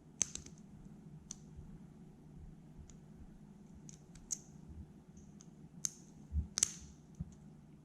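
Small metal parts of a Glock trigger assembly clicking and ticking irregularly as the connector is worked into place under its hook, about a dozen light clicks.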